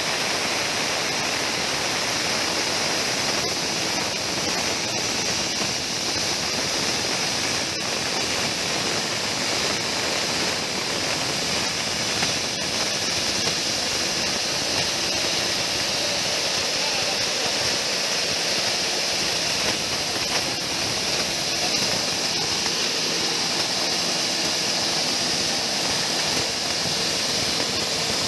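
Dry-coffee huller running steadily, driven by its small engine through a V-belt: a loud, even rushing mechanical noise.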